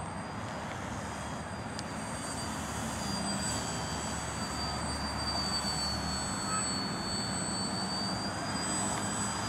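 Electric motor and propeller of a 3DEPP Yak RC aerobatic plane running, a steady high whine that wavers slightly in pitch with throttle, over a constant rushing noise; it grows gradually louder over the first few seconds.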